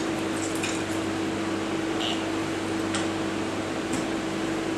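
Steady background hum with a low constant tone, over which come a few faint, short clicks and taps from a handheld lime squeezer being worked over a jigger and set down on a cutting board.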